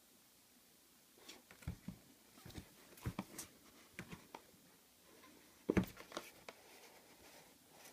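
Hands handling a cardboard toy box, making scattered light taps, rubs and knocks as it is turned around. A firmer thump a little before six seconds in is the box being set down on the table.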